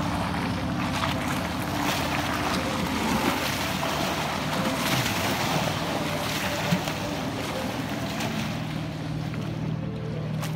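Motorboat engine running at a steady pitch, with water rushing and splashing close by and wind on the microphone.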